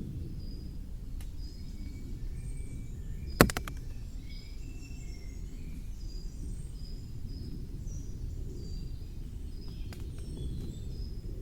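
Several birds chirping and calling over a steady low rumble of wind, with one loud sharp click about three and a half seconds in and a couple of fainter ticks elsewhere.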